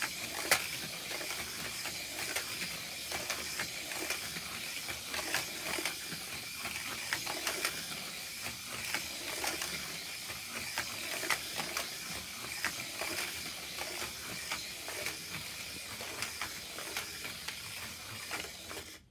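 Steady hiss with many irregular small clicks and ticks, and a faint steady high tone underneath.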